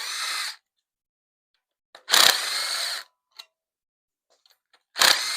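Power drill-driver spinning out valve cover bolts in short bursts of about a second each, one ending just after the start, then two more about two and five seconds in.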